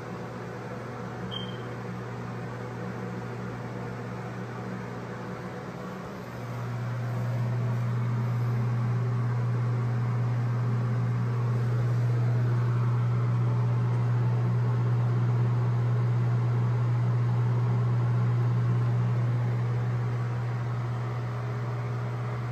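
Steady low mechanical hum, like a fan motor, which gets louder about six seconds in and then holds steady.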